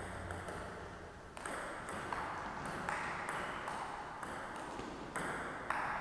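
Table tennis ball being struck back and forth in a rally: sharp celluloid-plastic ticks off rackets and table, roughly two a second.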